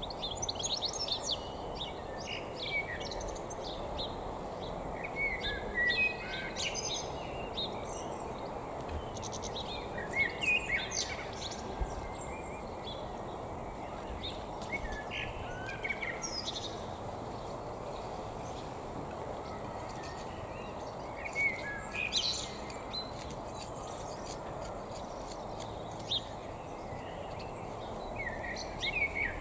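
Songbirds singing in short chirping phrases, coming in bouts, over a steady background noise.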